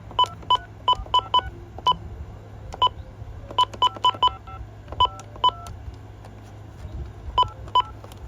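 Keypad beeps from a RadioShack 43-1704 two-line cordless phone as its buttons are pressed, some of them dual touch-tone (DTMF) tones: about seventeen short electronic beeps in an irregular rhythm, in quick clusters with pauses between, as the phone is tested after being plugged in. A faint steady low hum runs underneath.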